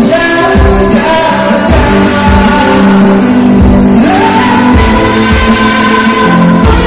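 Choir singing loudly over amplified backing music with a steady beat.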